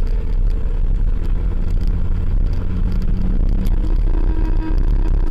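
Engine and road rumble of a moving car heard from inside its cabin: a steady, loud low rumble with the engine's hum shifting in pitch partway through.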